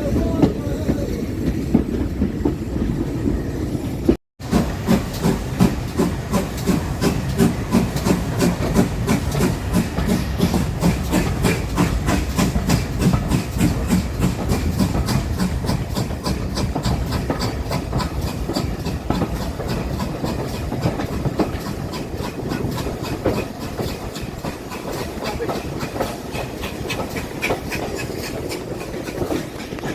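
A train running along the track with hiss: a steady rumble, then, after a brief dropout about four seconds in, a fast, even clatter that slowly fades.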